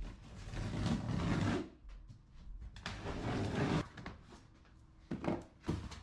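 Cardboard shipping box being handled and opened: two rough scraping, rubbing passes, the first about a second and a half long and the second about a second, then two short thumps near the end.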